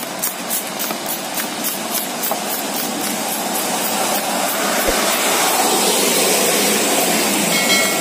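Hand trigger spray bottle squeezed over and over, each stroke a short hiss of mist, about four strokes a second at first, then a denser, more continuous hiss.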